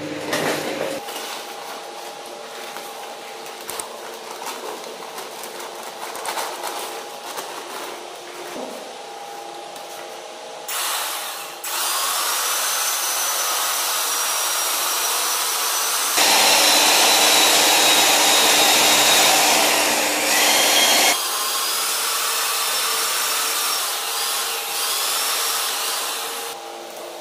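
A high-speed power tool starts about twelve seconds in and runs with a high whine, loudest for about five seconds in the middle, after a stretch of quieter scraping and knocking.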